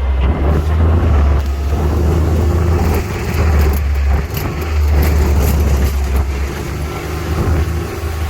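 A utility vehicle's engine running on the move, with a heavy, steady low rumble.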